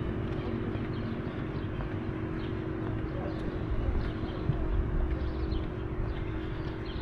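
Street ambience: a steady mechanical hum over a low rumble, likely a vehicle running nearby, with faint short high chirps scattered through.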